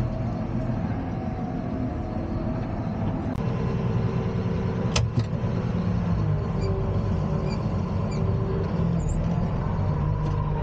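Allis-Chalmers 8030 tractor's diesel engine running steadily as the tractor is backed out and manoeuvred, with one sharp click about five seconds in.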